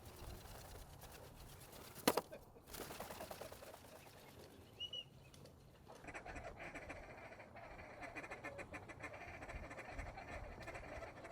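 Ducks calling: quacking and chatter, thickening into a continuous busy chorus from about halfway through. There is a short high whistle a little before the middle, and a single sharp crack about two seconds in.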